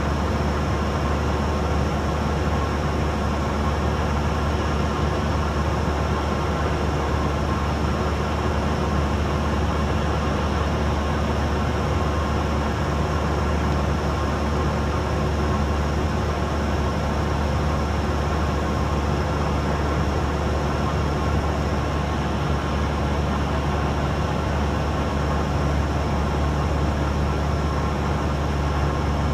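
Cessna 172's four-cylinder Lycoming engine and propeller droning steadily in flight, heard inside the cockpit.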